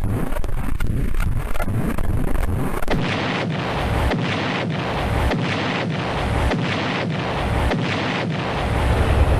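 Cartoon explosion sound effect: rapid cracking bangs, three or four a second, give way about three seconds in to a long, loud blasting rumble that pulses about once a second and swells near the end.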